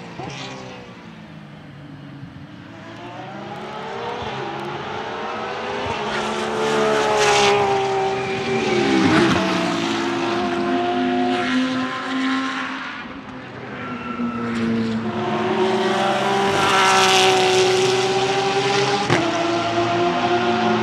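Porsche 992 GT3 R's naturally aspirated 4.2-litre flat-six racing engine driving past on track, its pitch climbing under acceleration and dropping several times. About nine seconds in, the pitch falls sharply as a car goes by.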